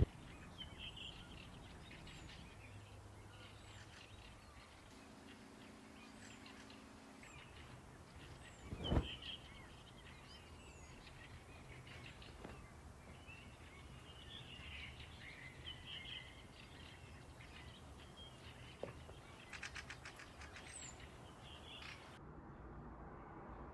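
Faint birdsong, scattered short chirps over a low steady background rumble, with a single knock about nine seconds in.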